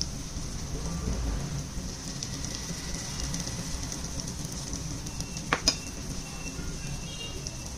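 Eggs and cha-om shoots frying in oil in a pan: a steady sizzle with fine crackling. Two sharp clicks come close together about five and a half seconds in.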